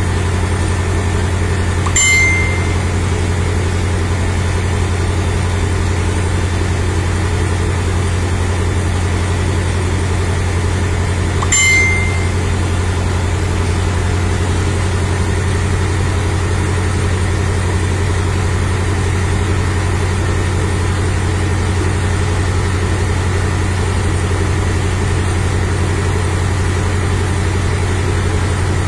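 Isuzu fire truck's diesel engine idling steadily with a low hum. Two short high beeps cut through it, about ten seconds apart.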